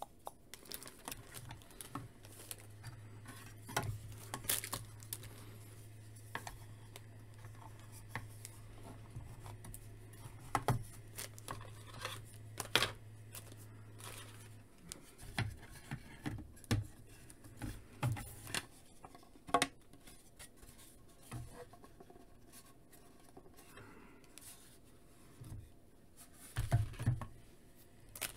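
Hard plastic pieces of a modular diorama kit being handled and fitted together: scattered clicks, taps and scrapes of plastic on plastic and on the tabletop at irregular moments. A faint low hum runs through about the first half.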